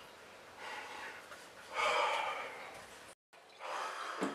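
A young man's heavy sighs and breaths out: two long exhales, the second and louder about two seconds in, then a moment of dead silence just after three seconds and a further faint breath. The sighs are exasperated, with his hand pressed to his forehead.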